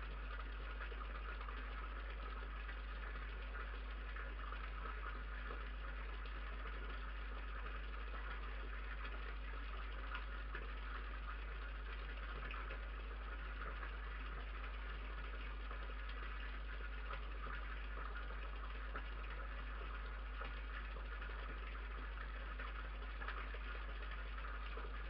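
Steady electrical hum and hiss from a security camera's microphone, with faint scattered ticks.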